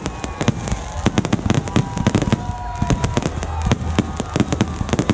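Fireworks going off in quick, irregular succession: many sharp overlapping bangs and crackles, several a second, with faint held whistling tones in between.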